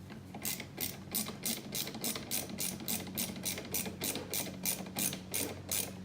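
Ratcheting driver turning a small T10 Torx screw, clicking in short, even strokes about three times a second. It starts about half a second in.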